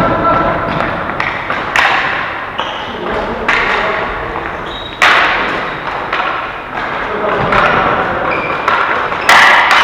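Ball hockey play: irregular thuds and sharp knocks from the ball and sticks hitting the boards and each other, with the loudest hits about halfway through and near the end.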